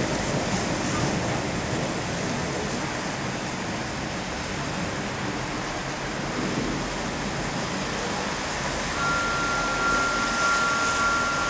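Thunderstorm rain and wind making a steady rushing noise. A steady high tone joins about nine seconds in.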